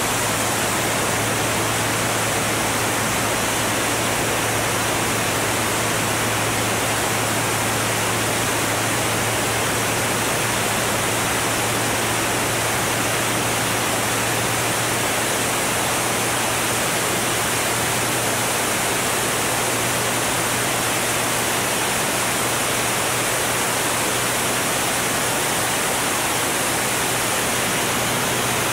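Steady rush of wind over a camera mounted on a Formula One racing airplane at full racing speed, with the steady low drone of its Continental O-200 engine and propeller underneath.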